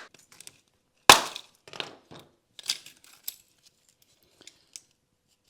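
Chunks of layered ledge rock being tapped and split into smaller pieces: one sharp crack about a second in, then several fainter clinks and crackles as the stone flakes apart.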